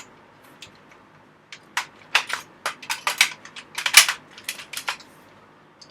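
Sharp metallic clicks and clanks, a quick irregular run of them from about a second and a half in to about five seconds, the loudest near four seconds: the barrel of a Mossberg Maverick 88 pump shotgun being fitted back onto the receiver and magazine tube and worked into line.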